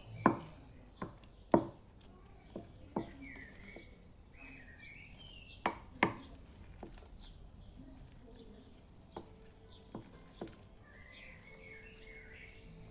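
A wooden spoon stirring a thick, soft cheese mixture in a ceramic bowl, clacking against the bowl's side in irregular sharp knocks, most of them in the first half.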